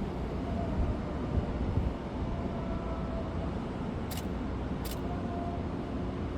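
Steady outdoor city background: a low rumble of traffic-like noise, with two short sharp clicks about four and five seconds in.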